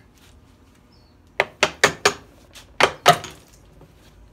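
Six sharp hammer knocks against a stuck pump seal plate, four quick ones then two more after a short pause, to knock it loose from the motor.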